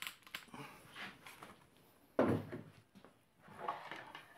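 Handling of cordless drills and a digital torque adapter on a workbench: clicks and light clunks as the adapter is swapped onto the drill and a battery is picked up. A louder short sound that falls in pitch comes about two seconds in.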